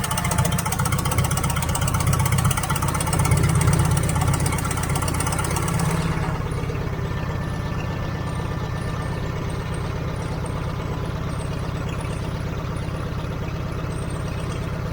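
Heavy-equipment engine running steadily at a low idle, with a hiss in the top end that cuts off suddenly about six seconds in.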